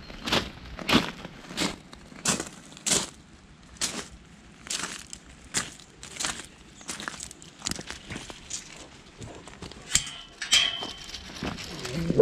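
Footsteps crunching on gravel at a steady walking pace, about one and a half steps a second, turning irregular partway through. About ten seconds in comes a sharp click and a short high squeak, and huskies begin to whine right at the end.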